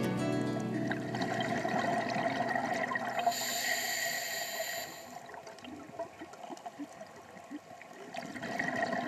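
Scuba diver's breathing through a regulator, recorded underwater: a hiss of about two seconds near the middle, with bubbling from exhaled air around it.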